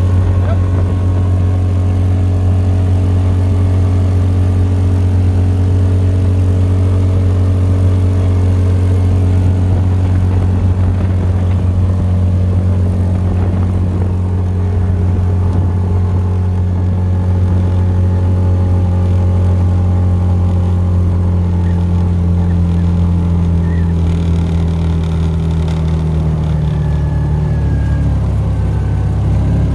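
Yamaha Rhino 700 UTV's single-cylinder engine running steadily under way, its note dropping lower near the end as it slows.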